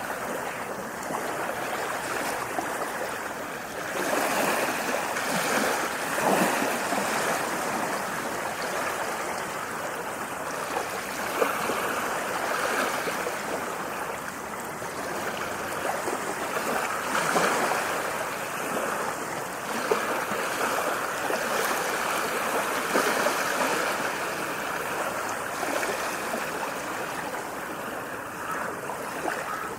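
Ocean waves washing in and out: a continuous rush of water that swells and eases every few seconds.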